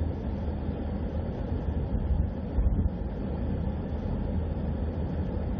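Steady low rumble of a vehicle moving along a road, with a brief louder bump about halfway through.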